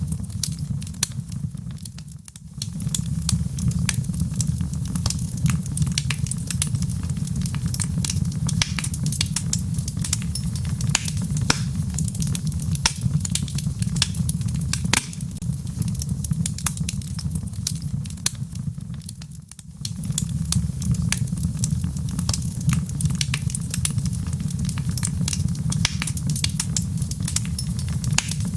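Wood fire burning in a fireplace: a steady low rumble of flames under many sharp crackles and pops from the burning logs. The sound dips briefly twice.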